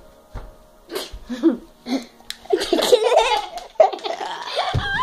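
Laughter: a few short bursts at first, then hard, continuous laughing from about two and a half seconds in.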